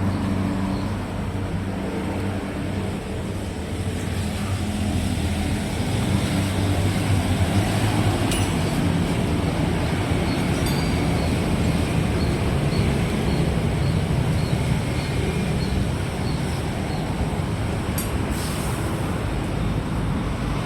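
Truck under way on the road: the engine runs with a steady drone over continuous road noise, with a faint, regular ticking through the middle of the stretch.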